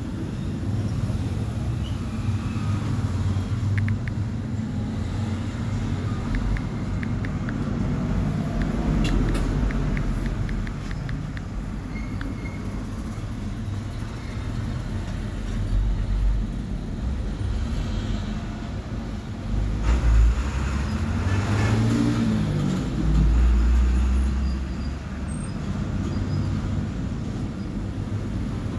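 Steady low rumbling background noise, swelling louder a few times in the second half, with scattered faint clicks in the first half.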